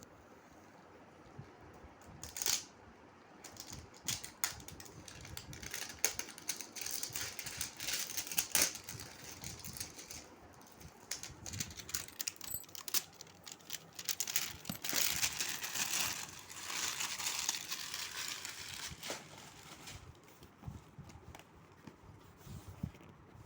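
Packaging being unwrapped by hand: plastic wrapping crinkling and tearing, with scattered clicks and handling noises. It starts about two seconds in and dies down near the end.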